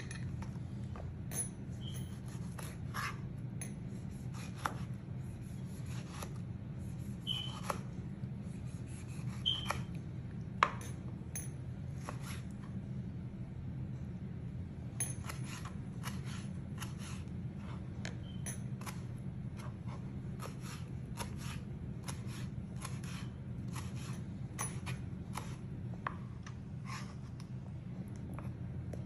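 Cuisinart kitchen knife cutting a tomato on a plastic cutting board: scattered taps of the blade through the fruit onto the board, coming faster and more evenly about halfway through as the slices are diced. A steady low hum runs underneath.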